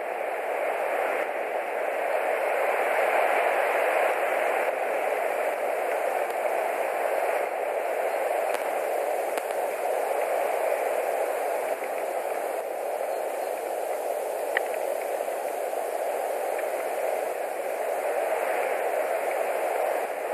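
Steady rushing wind noise that swells and eases slowly, with no bird calls, and a single faint tick about three-quarters through.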